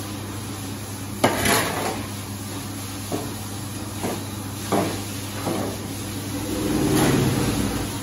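Long-handled scraper scraping and knocking on a concrete barn floor as dung is pushed along: a sharp scrape about a second in, then several shorter knocks, over a steady low hum.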